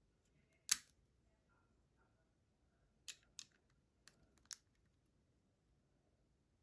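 Sharp plastic clicks from a Lego-brick AR-15 replica's mechanism being worked. One loud snap comes about a second in, then a quick cluster of four or five lighter clicks a few seconds later.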